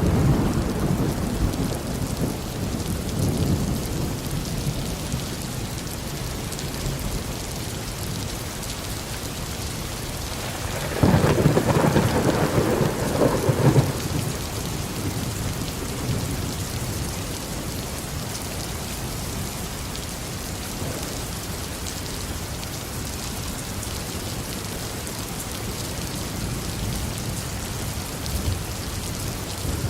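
Steady tropical rain falling, with thunder rumbling at the start. About eleven seconds in, a louder peal of thunder breaks suddenly and rolls for about three seconds before the rain carries on alone.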